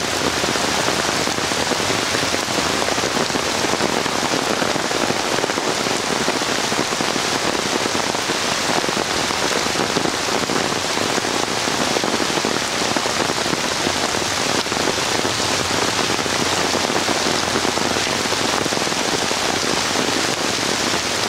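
Heavy rain pouring down steadily onto trees and floodwater, a dense, even hiss that does not let up.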